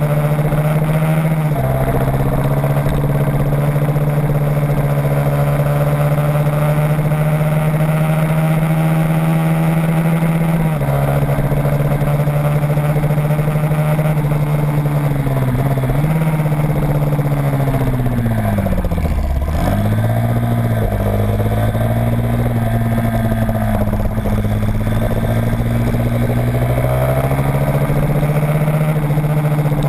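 Small motorcycle engine recorded on board at speed, held at steady high revs with short drops as the rider shifts. Around two-thirds through, the revs fall sharply, as when slowing for a corner, then pick back up and hold.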